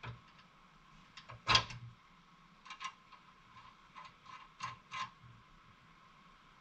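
Irregular metallic clicks and clinks of hand tools and hardware being worked on a Jeep's rear sway bar link mount as the new link's bolts are tightened. The loudest clink comes about one and a half seconds in, with small clusters of clicks near three seconds and again around four to five seconds.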